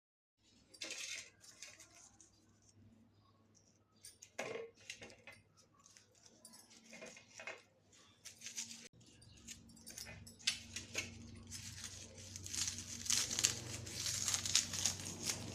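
Dry crinkling and clicking of whole garlic being handled, cloves broken from the bulb and papery skins rubbed off, irregular and busier in the second half.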